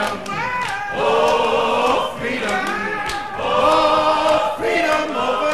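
A group of voices singing together slowly, each note held about a second with short breaks between phrases.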